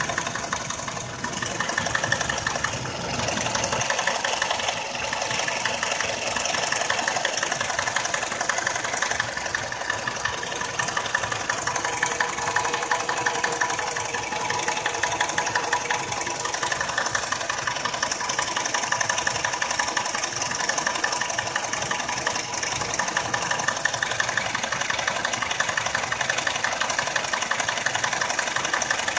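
Nissan X-Trail engine idling warm with a rapid, even knock from the timing chain drive area. The knock appears only once the engine has warmed up, and the mechanic suspects the timing chain.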